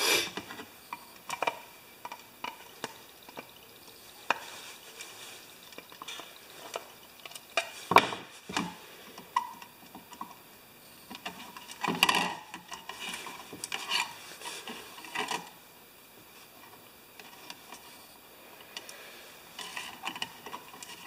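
A screwdriver prying and scraping at a plastic lamp base as it is handled, giving scattered clicks, scrapes and knocks; the sharpest click comes about eight seconds in, with a cluster of them around twelve seconds.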